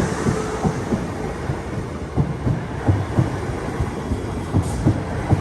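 A Class 450 electric multiple unit passing at close range. A steady rumble of wheels on the rails, with irregular low thumps throughout.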